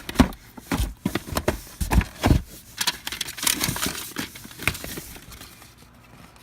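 Packaging crinkling and rustling in quick irregular bursts, with a few dull knocks, as items are dug out from under other stock in a box; it dies down near the end.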